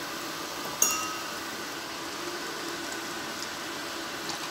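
A sharp metallic clink about a second in, then water poured from a cup into a stainless steel pot of mushroom soup.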